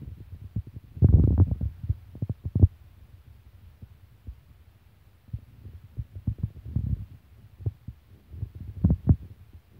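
Wind buffeting the microphone in irregular low rumbles and thumps, strongest about a second in and again near the end.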